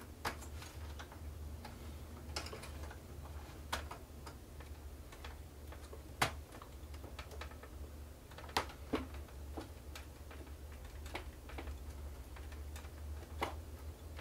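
Scattered small clicks and taps, a few sharper than the rest, as a metal pick works a wired connector loose from a projector's circuit board, over a steady low hum.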